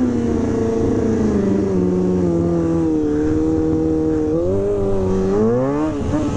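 Motorcycle engine running at high revs, its pitch slowly sagging, then revved up twice near the end, the second a quick climb.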